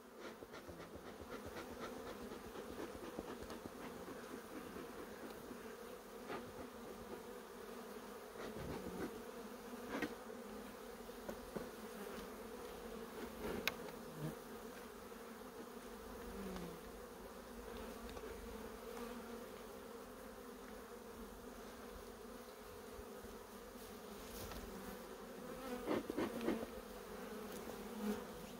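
A steady buzzing hum of a dense mass of honeybees around an open hive, from a very populous colony, with a few short knocks and clicks scattered through it.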